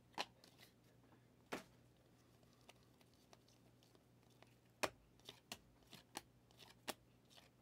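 Faint, sparse clicks and snaps of stiff Mosaic football trading cards slid and flicked against one another as they are flipped through in the hand, most of them bunched in the second half.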